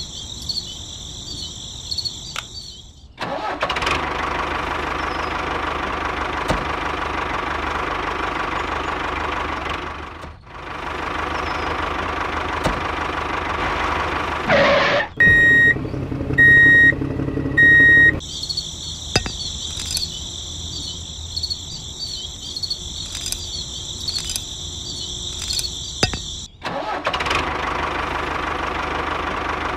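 A tractor engine running steadily, with a brief dip about ten seconds in, then three short high beeps over a low idle. Insect chirping fills the stretches at the start and for several seconds after the beeps, and the engine comes back near the end.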